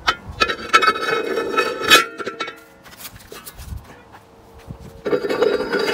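Steel disc blades and spools being stacked onto the upright square gang shaft of an International 480 disc harrow, clinking and ringing metal on metal. There is a cluster of clinks in the first two seconds, a quieter stretch, then another ringing burst near the end.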